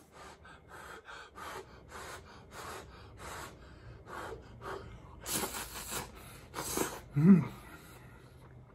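A person slurping somen noodles: a run of short sucking slurps, then two longer, louder slurps about five and a half and seven seconds in, followed by a brief low hum.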